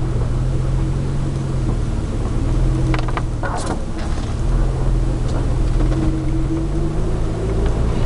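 Jeep TJ Wrangler engine running at low, steady revs while crawling along a rutted dirt track, heard from inside the cab. A few short knocks come about three seconds in.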